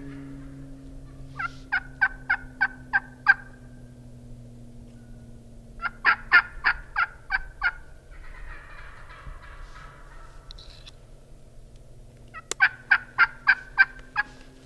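Turkey yelps: three runs of six or seven evenly spaced yelps, a few seconds apart. A low steady hum slowly falling in pitch runs underneath.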